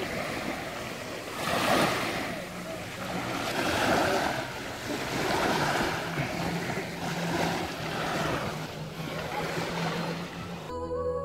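Small sea waves washing up onto a sandy shore, the wash swelling and fading about every two seconds. Music starts near the end.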